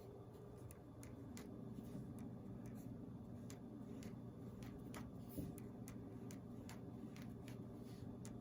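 Faint room tone: a low steady hum with scattered faint, irregular clicks.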